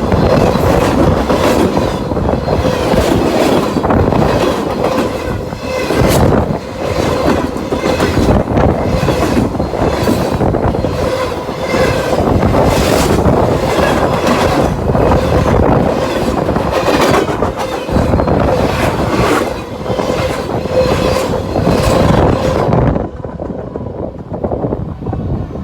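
Freight cars of a manifest train rolling past close by: a steady clatter of wheels over rail joints, with a continuous wheel squeal. About 23 seconds in the last car passes and the clatter stops suddenly, leaving wind noise.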